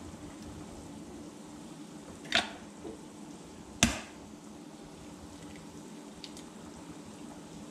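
Two sharp taps about a second and a half apart, an egg's shell being cracked against a hard edge, over a steady low hum.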